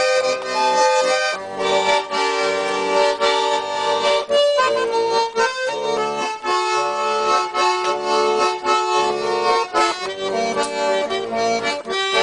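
Russian garmon (button accordion) playing the instrumental break of a chanson song, a melody moving over held chords, with no singing.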